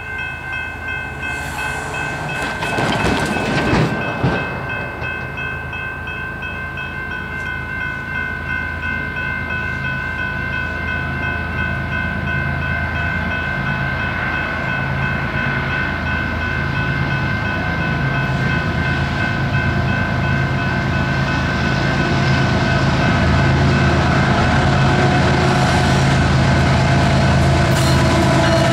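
Grade-crossing warning bell ringing steadily while an approaching diesel-hauled freight train grows louder, its locomotive rumble rising until the lead engine reaches the crossing near the end.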